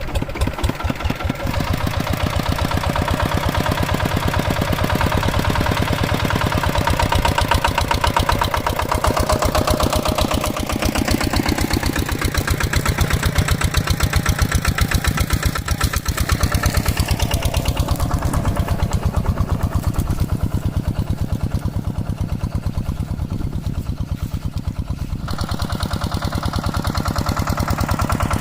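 Two-wheel hand tractor's single-cylinder diesel engine running with a steady, rapid firing beat. Its level sags briefly a couple of times and picks back up.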